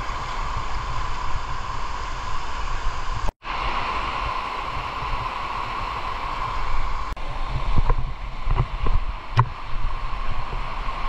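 Steady rush of a shallow river pouring over flat rock, with a deep rumble underneath; it breaks off for an instant about a third of the way in, and a few short knocks sound near the end.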